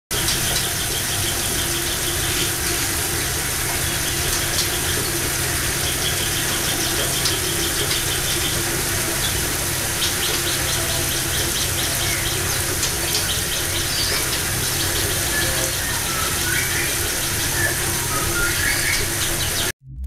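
Small caged songbirds chirping and calling, with a few short rising whistles near the end, over a steady low hum and hiss. The sound cuts off suddenly just before the end.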